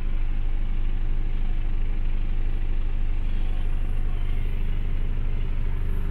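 Mercedes-Benz Actros 1848 truck's diesel engine idling steadily, heard from inside the cab.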